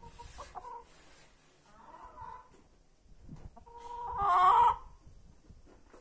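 Hens clucking softly, then a loud, drawn-out hen squawk for about a second, starting near four seconds in. It is the sound of two hens disputing the same laying spot.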